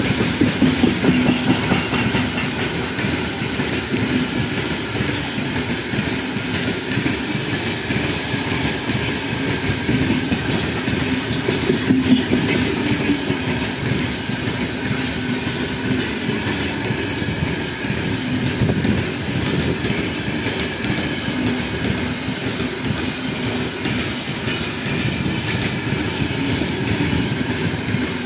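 Freight train of open-top gondola wagons rolling steadily past: a dense rumble of steel wheels with clicks over the rail joints.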